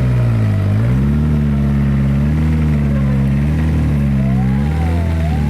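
Suzuki Vitara's engine working hard under load. Its revs dip about half a second in, climb back, then rise and fall a few times.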